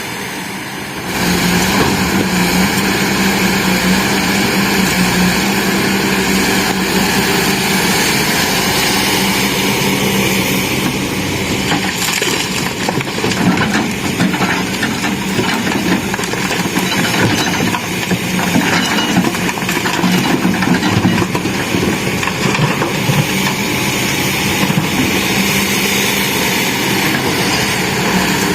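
Heavy diesel engine of an excavator or dump truck running steadily. It gets louder about a second in and stays at that level.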